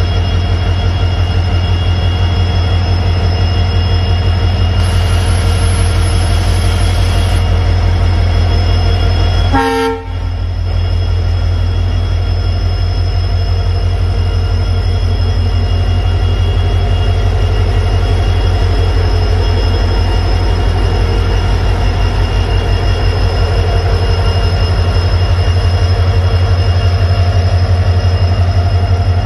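WDG4 diesel locomotive's two-stroke V16 engine running with a steady, loud, low throb. The sound breaks off briefly about ten seconds in.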